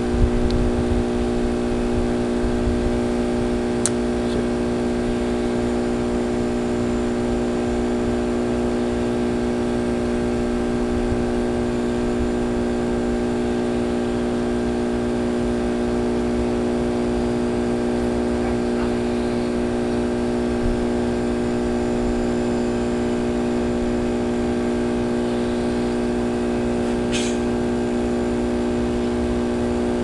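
A steady machine hum at one constant pitch, with no rise or fall, like a motor or engine running at fixed speed. There is a faint tick a few seconds in and a brief high scratch near the end.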